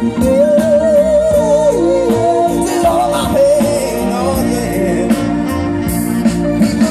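A band playing a slow Motown soul song, with a voice holding and bending long wordless notes over steady chords and bass.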